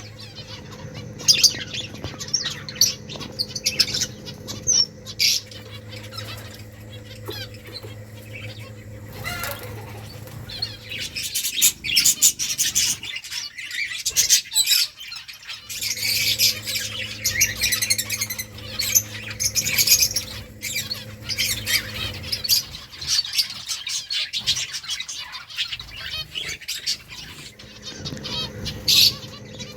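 A group of small pet finches chirping rapidly in short, high calls, with bursts of wing fluttering.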